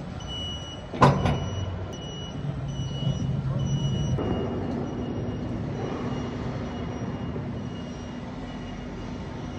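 Rail transfer cart's warning beeper sounding in short, evenly repeated high beeps. About a second in, a single sharp metal clank as the automatic towing hook latches into the platform trolley's hitch, then the cart's electric drive runs with a steady low hum.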